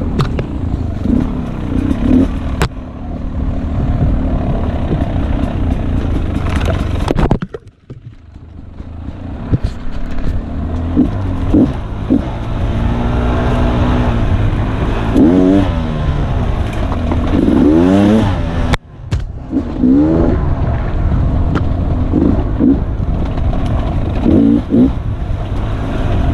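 Dirt bike engine on a trail ride, revving up and down as the throttle is worked. The throttle is chopped sharply about seven seconds in, the engine going nearly quiet before building back, and again briefly about nineteen seconds in.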